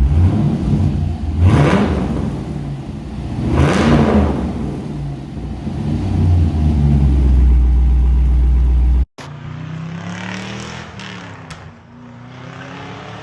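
2005 Pontiac GTO's LS2 V8 running through a muffler-delete exhaust, revved up twice early on and settling back to a steady idle between. About nine seconds in the sound cuts off abruptly and gives way to a quieter engine sound.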